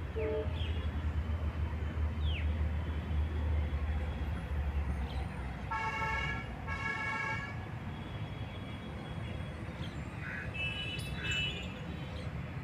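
A vehicle horn honks twice, about six and seven seconds in, over a steady low rumble of outdoor traffic that fades after the first few seconds. A few short bird chirps are scattered through it.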